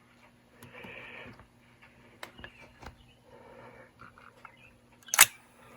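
Small clicks and faint handling noise from a vintage Dictaphone tape mechanism as a wire is connected, then one sharp clack about five seconds in as the mechanism trips the tape head into place.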